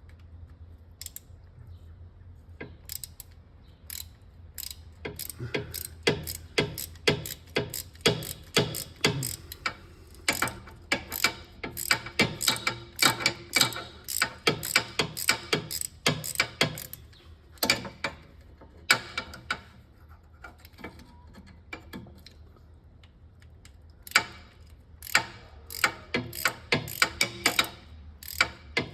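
Hand ratchet fitted with a T30 Torx bit clicking in quick runs of short swings while working the crankshaft position sensor's bolt. There are two long runs of clicks with a pause of a few seconds in between.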